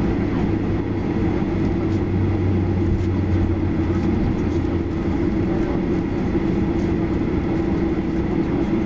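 Cabin noise inside a Boeing 737-800 rolling on the ground: the steady hum of its CFM56-7B jet engines mixed with the rumble of the wheels on the pavement.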